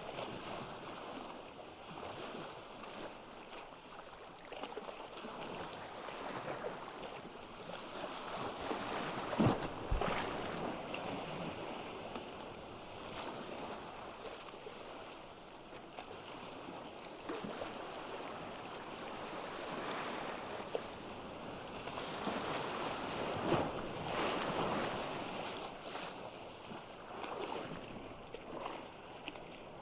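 Ocean surf washing onto a beach, a steady wash of noise that swells and recedes, with louder breaking waves about ten seconds in and again a little past two-thirds of the way through.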